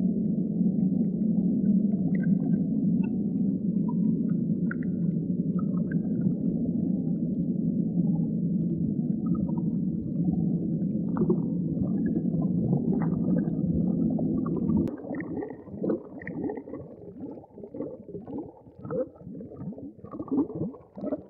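Muffled, underwater-like ambient rumble of sound design, a dense low drone; about fifteen seconds in it cuts to a run of short bubbling, gurgling pulses.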